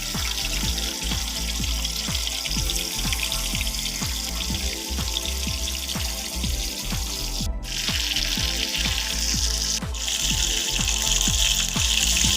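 Small pomfret fish deep-frying in hot oil, a steady sizzling hiss that grows louder about eight seconds in, over background music with a steady beat.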